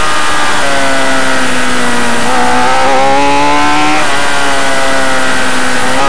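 Motorcycle engine heard from an on-board camera while racing on a track. The engine note sinks through a bend, then rises under throttle, with a sudden drop in pitch about four seconds in as it shifts up, and it climbs again near the end.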